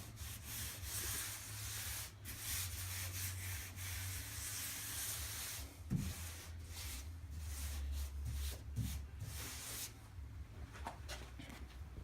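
A vinyl decal being slid and rubbed by hand across a wet vehicle hood to position it. It makes long rubbing strokes with short breaks about two, six and ten seconds in.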